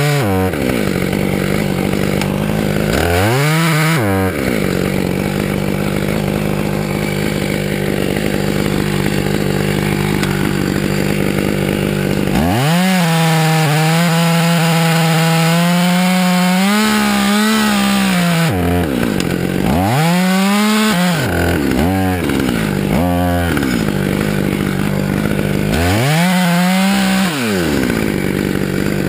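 Gas chainsaw idling, blipped once, then run at full throttle into the wood for about six seconds, its pitch sagging and wavering under the load of the cut. After that come several quick throttle blips back to idle, and another short burst of cutting near the end.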